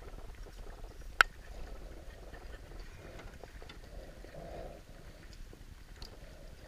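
Canoe paddles pulling through calm water in soft swishes every second or so, with one sharp knock about a second in.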